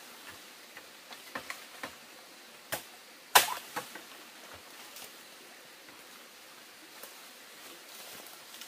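A few light taps and knocks, then one sharp, loud knock about three and a half seconds in.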